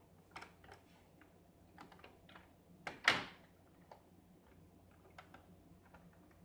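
Puzzle box mechanism: a key pushed down a hole with light taps and scrapes, then one sharp click about three seconds in as the internal L-shaped lock on the key's axle releases and frees the side panels. A few faint taps follow.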